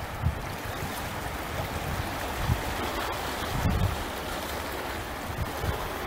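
Seashore ambience: a steady wash of small waves lapping against a rocky shore, with wind buffeting the microphone in irregular low gusts.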